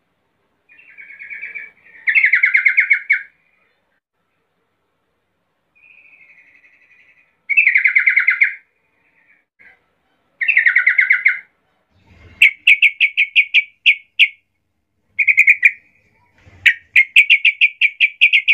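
Yellow-vented bulbul (trucukan) singing. It gives three loud, bubbly phrases of about a second each, the first with a quieter lead-in. In the second half come quicker runs of chirped notes, mixed with a few sharp clicks.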